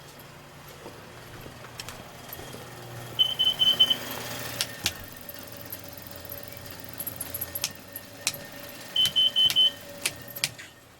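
Kidde carbon monoxide alarm sounding, in groups of four short high beeps, twice about six seconds apart, over a low steady hum and a few clicks. The four-beep pattern signals carbon monoxide, which the owner blames on exhaust fumes leaking past the motorhome's exhaust manifold seals.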